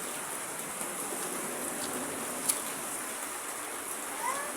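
Steady hiss like rain falling, with a few sharp clicks and a short rising tone near the end.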